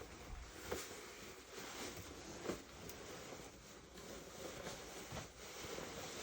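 Faint fabric rustling with a few soft taps: a jacket being put on and tried for fit.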